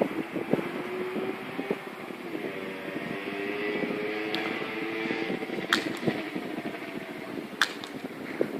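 A distant engine running with a steady hum that slowly shifts in pitch, and two sharp clicks in the second half.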